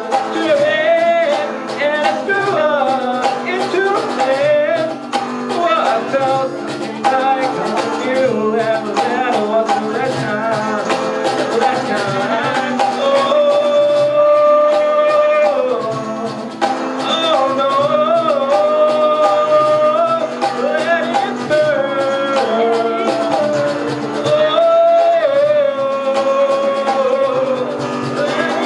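Live band music with a melody of long, bending held notes over guitar and percussion.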